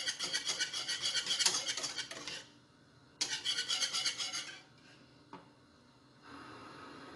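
Wire whisk beating a thick milk cream in a stone-coated saucepan: quick, rhythmic scraping strokes in two spells, stopping about four and a half seconds in.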